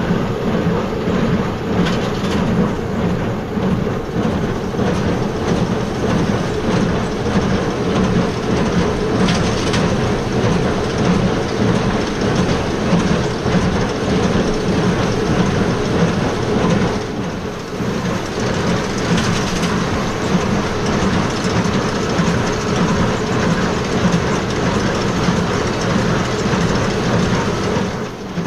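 Tractor pulling a small square baler, its engine and the baler running steadily while baling wheat straw.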